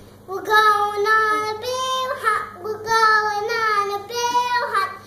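A young girl singing a tune in held notes that step up and down in pitch.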